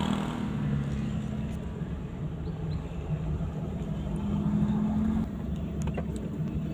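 Car driving on a winding road, heard from inside the cabin: the engine runs steadily under a low rumble of road noise, with a couple of faint ticks near the end.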